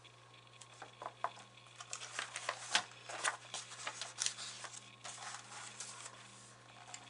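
Page of a hardcover picture book being turned by hand: a run of faint paper rustles and crackles, starting about a second in and dying down after about five seconds.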